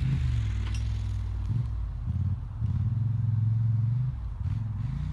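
Polaris ATV engine running, its pitch held steady in stretches and dipping briefly a few times as the throttle changes.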